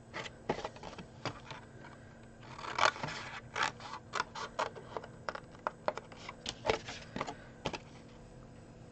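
Small scissors snipping through card stock in a string of irregular sharp cuts, with the card being handled between them; the cutting stops about a second before the end.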